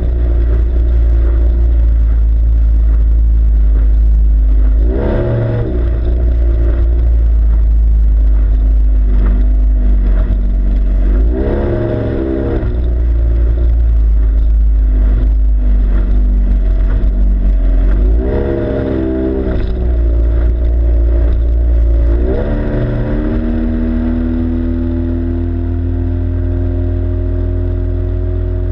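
Yamaha two-stroke outboard motor running hard on a small RIB, a steady engine note over a heavy low rumble. Its pitch dips briefly and recovers several times, then about two thirds of the way through it drops back, gets a little quieter and slowly climbs again.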